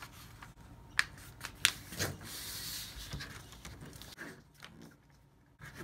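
A sheet of printer paper being folded in half by hand on a tabletop: light crinkles and taps, with a longer rustle about two seconds in as the sheet slides and is creased flat.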